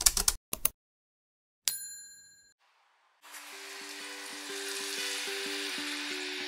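A few short sharp sounds at the very start, then a bell-like ding about two seconds in that rings out and fades. From about three seconds in, tap water runs in a steady stream into a hammered stainless steel saucepan.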